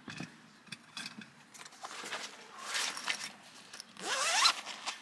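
Light metal clinks and rattles from a folding grill stand being handled, then a zipper on a soft carrying case pulled in one quick stroke about four seconds in, the loudest sound.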